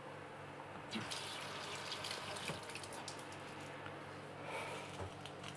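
Water heating in a shallow non-stick pan on the stove, beginning to simmer: a soft hiss with many small ticks and pops from forming bubbles, over a faint steady hum.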